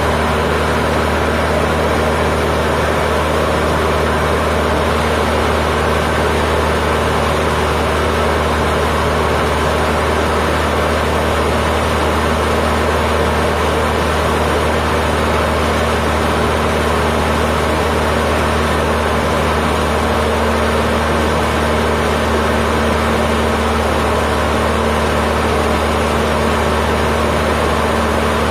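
Cessna 152's four-cylinder Lycoming O-235 engine and propeller running steadily in flight, heard from inside the cockpit.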